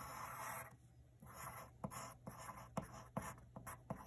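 Pencil writing on paper: one longer scratching stroke at the start, then a string of short, quick strokes as figures are written.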